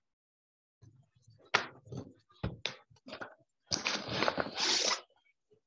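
Pencil scratching on paper as outlines are sketched: a few short strokes, then a longer, denser stretch of scratching about four seconds in.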